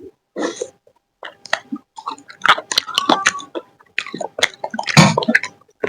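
Close-miked chewing and biting of food: dense, irregular wet clicks and crunches, starting about a second in and busiest in the second half.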